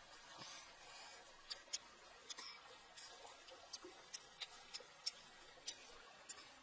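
Faint mouth sounds of someone chewing cooked bugs: irregular sharp clicks and crunches, one or two a second.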